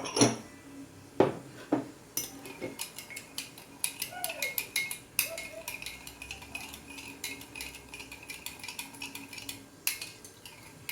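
A few knocks, then a spoon stirring sugar and water in a glass mug, clinking rapidly and steadily against the glass to dissolve the sugar for a caramel syrup.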